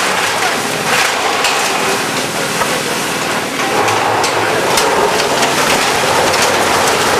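Fire-fighting at a smouldering fireworks shed: a loud, steady rushing hiss with scattered crackles and knocks.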